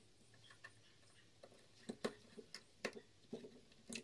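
Faint, irregular clicks and taps from hands handling speaker wire at the amplifier's speaker terminals, most of them in the second half.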